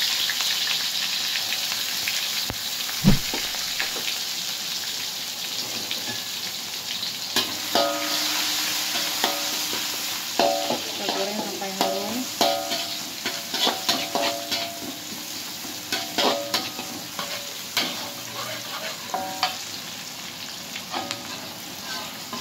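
Sliced shallots and garlic sizzling in hot oil in a metal wok, the sizzle slowly dying down. From about seven seconds in, a metal spatula scrapes and clinks against the wok as they are stirred. One thump about three seconds in.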